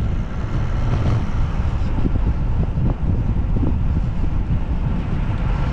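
Wind buffeting the microphone of a camera riding along on a moving road bicycle: a steady low rumble with rushing noise over it.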